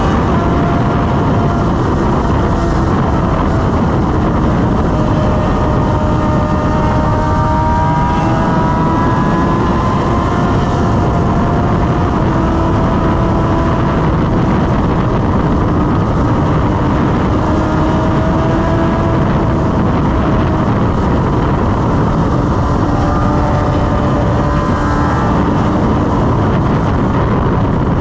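BMW S1000RR's inline-four engine running at high highway speed, its note drifting slowly up and down in pitch, under heavy wind rush.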